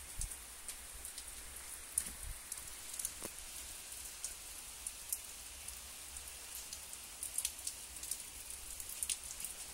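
Steady rain falling, with many single drops ticking close by on wet concrete and into standing water.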